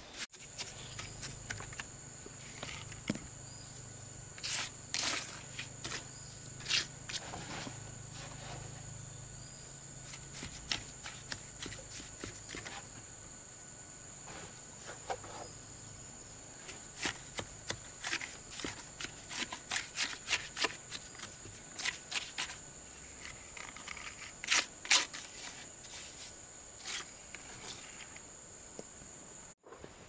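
Steel trowel scraping mortar and knocking on cement blocks while a block wall is laid: an irregular string of short scrapes and taps, a few louder knocks among them. A steady high insect whine runs underneath.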